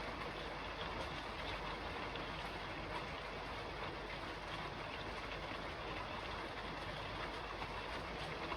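Steady rain falling on a roof: an even, constant hiss with a few faint scattered drop ticks.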